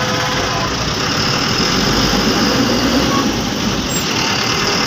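Bus engine running steadily with road noise, heard from inside the cab.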